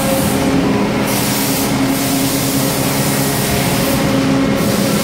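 Steady mechanical hum and rushing noise from running machinery, with an even low drone and no breaks.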